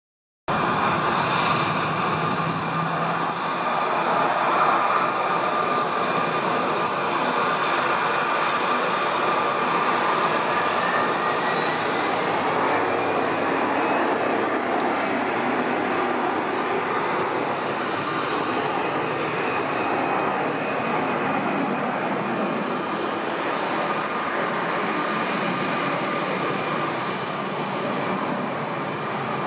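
Jet airliner engines running steadily with a high whine, from an Airbus A320-family jet moving along the runway; the sound cuts in abruptly about half a second in, and one whine tone rises slightly around the middle.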